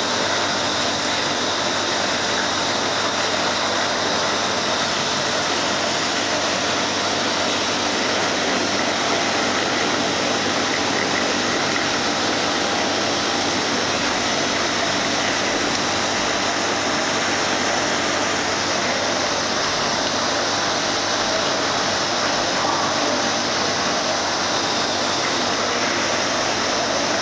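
Steady, unchanging rushing noise of running aquarium equipment such as water pumps and aeration.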